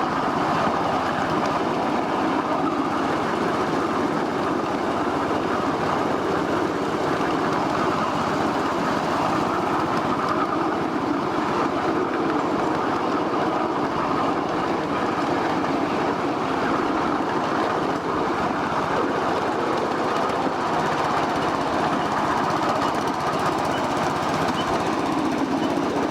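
A 1/8-scale ride-on miniature train running steadily along its track, a continuous rumble and clatter of small wheels on the rails.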